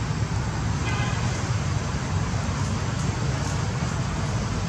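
Steady low rumble of road traffic passing nearby, with a brief faint call about a second in.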